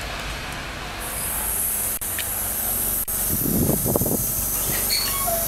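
Regional train heard from inside the carriage, running on the rails and braking as it comes into a small halt. About a second in a steady high hiss joins the running noise. A burst of rattling comes about three and a half seconds in, and brief high wheel squeals near the end.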